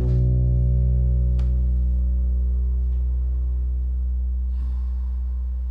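Nylon-string classical guitar's final chord left to ring at the end of a song, a full low chord sustaining and slowly fading, with a faint click about a second and a half in.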